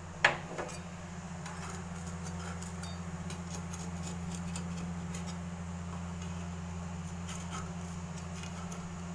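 A metal spatula scraping and clicking against a clay pitha pan as rice cakes are lifted: one sharp click just after the start, then faint scattered ticks, over a steady low hum.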